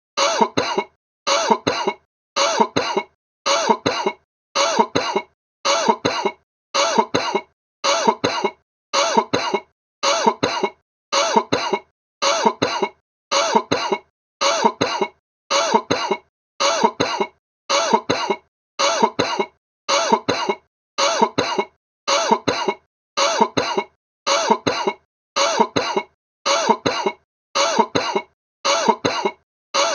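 A person's sick cough, two short coughs at a time. The same pair repeats about every second and a half with silence between, in an unchanging loop.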